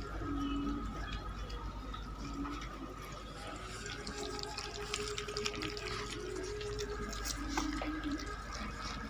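Several puppies eating rice from a plate, with a steady stream of wet smacking and chewing clicks.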